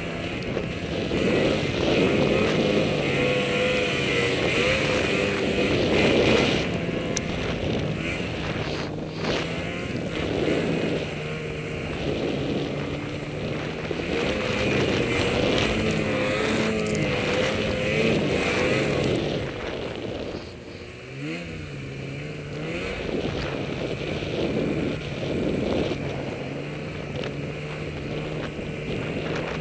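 Snowmobile engine running under load while riding through deep snow, its pitch rising and falling with the throttle. It briefly drops off and revs back up around two-thirds of the way through.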